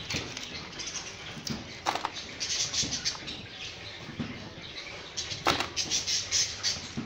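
Water splashing and sloshing in a steel basin as hands scrub crabs, with irregular clicks and scrapes of shell against the metal. The splashing comes in bursts about two and a half and five and a half seconds in.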